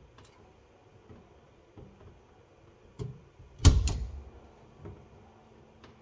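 Faint scattered clicks of hands handling small parts, then a loud double knock of something hard hitting a surface about two-thirds of the way through, with a sharper single knock just before it.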